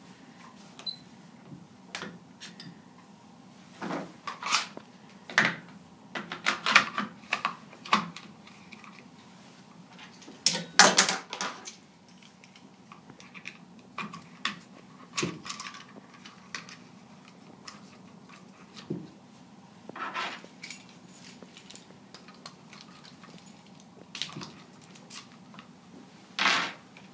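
Irregular clicks, clacks and knocks of a plastic butterfly valve lockout being handled and fitted over a valve handle, with the loudest cluster about halfway through, over a faint steady hum.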